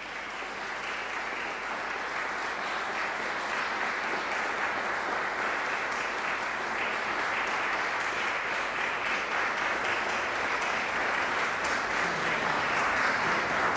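Concert audience applauding, a steady dense clapping that grows a little louder near the end.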